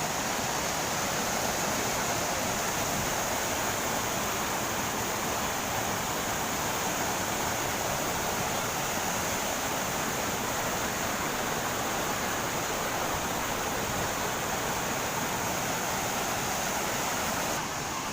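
Waterfall rushing in a steady, even roar of falling water, dropping a little in level near the end.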